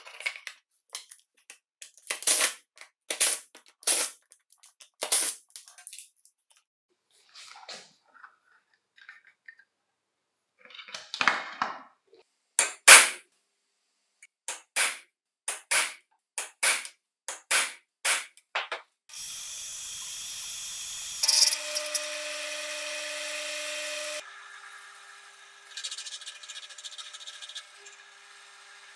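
Sharp taps and clicks of hand work, then a string of hard metal strikes as a centre punch is struck to mark a steel strip held in a vise, the loudest about two-thirds of the way through that run. From about two-thirds in, a drill press runs steadily, then drops to a quieter hum as it drills holes in the steel strip.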